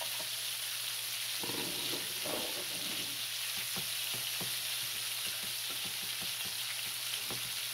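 Diced onion and bell pepper frying with a steady sizzle in a hot skillet, stirred with a wooden spatula that scrapes and taps the pan in quick irregular strokes from about a second and a half in. A low steady hum runs underneath.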